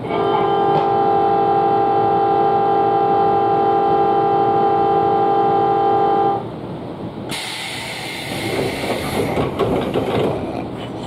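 A station departure buzzer sounds as one steady electronic tone for about six seconds, then cuts off. About a second later a sudden hiss of air starts as the Nankai Shiomibashi Line train's doors close, followed by softer train noise.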